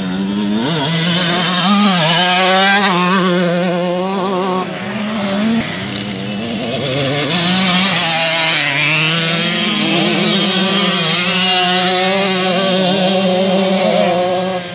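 Motocross bike engines, among them a KTM 125cc two-stroke, revving hard as the bikes ride the dirt track, the pitch rising and falling again and again with gear changes and throttle, with one long rising run near the middle.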